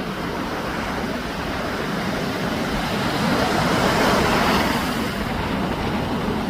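Sea waves breaking and washing on the shore, a continuous surf noise that swells to a peak about four seconds in, with some wind on the microphone.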